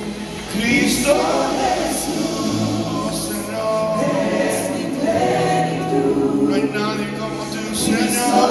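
Live worship music: a worship team of men and women singing a Spanish worship song together into microphones, over keyboard accompaniment.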